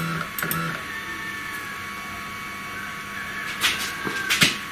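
Stepper motors of a 3018 CNC router jogging the spindle head in short, slow moves: two brief whines at the start, a fainter tone about a second in, and a longer one from about three and a half seconds in. A few sharp clicks come near the end.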